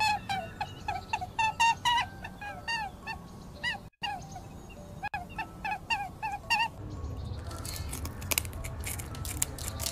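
A rapid run of short, shrill squeaks, several a second, played as the shrill cry a rabbit gives when frightened or hurt. After about six and a half seconds the squeaks stop and a patter of sharp clicks over a low rumble takes over.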